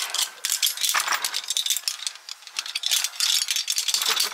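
Quick, dense metallic rattling and clinking of zip-line harness hardware, such as carabiners and trolley gear knocking together, louder about a second in and again near the end.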